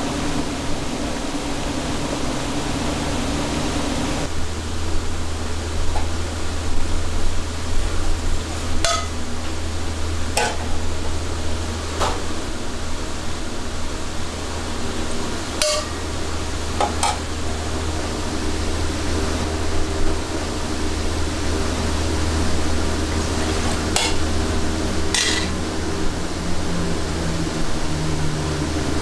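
Commercial kitchen at work: a steady hum and hiss, with about seven sharp metallic clinks of a metal ladle and utensils against stainless pots and pans at irregular intervals.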